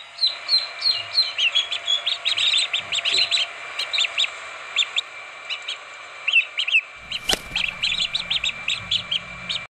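Several young chicks peeping, many short high chirps in rapid succession. A single knock sounds near the end, followed by low rumbling.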